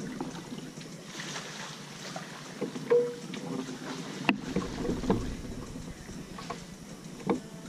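Kayak paddling: paddle strokes dipping and splashing in calm water, with a few knocks from the paddle and one sharp click a little past four seconds in.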